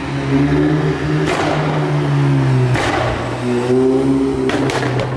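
Volkswagen Golf GTI Mk7's turbocharged 2.0-litre four-cylinder running through a Cobra Sport turbo-back sports exhaust with resonator as the car drives past loudly, its engine note rising and falling. Sharp exhaust cracks come about a second in, near three seconds, and twice near the end: overrun pops and bangs.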